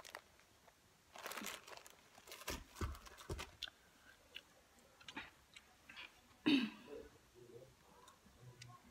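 Handling noise of plastic toiletry bottles and packaging: rustling, crinkling and small knocks, with a few soft thumps as they are put down. One louder sound comes about six and a half seconds in.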